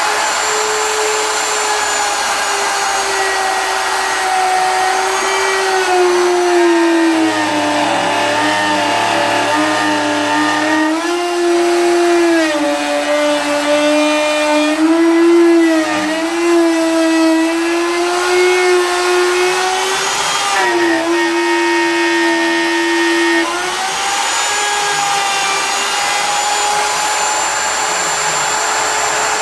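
Router running at speed as it cuts a groove into a turned wooden top on a lathe-mounted router jig. Its motor whine drops in pitch under load and rises again several times as the cut goes on.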